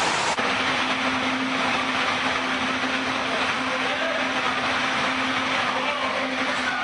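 A steady mechanical hum with an even rushing noise, starting abruptly just after the start and holding level throughout.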